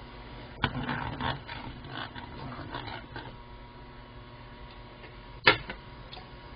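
Wooden spatula stirring and scraping in a wok of boiling soy-sauce liquid, a run of quick knocks and scrapes through the first three seconds or so. A single sharp knock about five and a half seconds in is the loudest sound. A steady low hum runs underneath.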